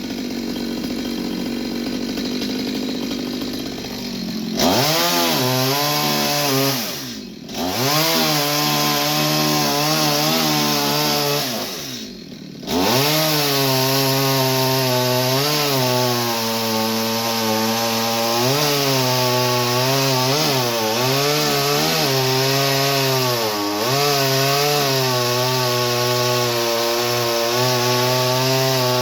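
Two-stroke chainsaw cutting wood. About four seconds in, the engine goes from steady running to a higher pitch, then sags and recovers again and again as the chain loads up in the cut. The sound breaks off briefly twice.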